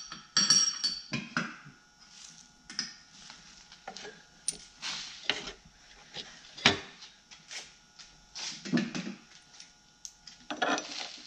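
Scattered sharp metal clinks and scrapes as the outer pulley half and spacer shims of a VW Type 1 generator pulley are handled and the fan belt is pulled off.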